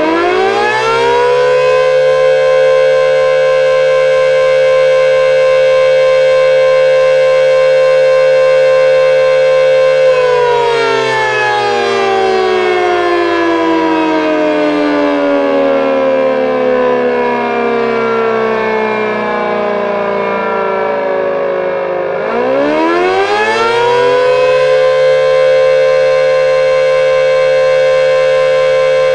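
Simulated Elektror L138 electromechanical siren with its high-tone and low-tone units sounding together. It winds up at the start and holds a steady wail for about ten seconds, then winds down slowly for about twelve seconds, then winds up again and holds. This is the on-off pattern of the German fire-alarm signal.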